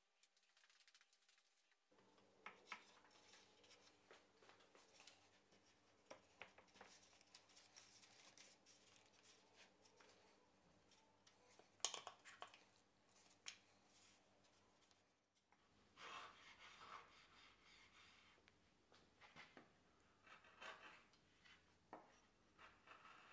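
Faint hand-tool work on pine: a screwdriver turning a screw into a wooden frame, with small creaks and a sharp click midway, then a wood chisel paring and scraping a corner joint in short strokes.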